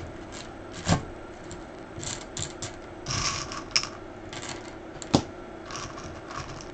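Small decorative stones clinking and shifting in a small cup as a succulent is pushed in among them, with two sharp knocks, about a second in and about five seconds in.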